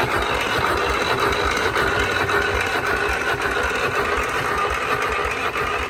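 Starter motor cranking a Detroit-badged diesel engine steadily without it firing, then stopping abruptly. No fuel is reaching the injectors.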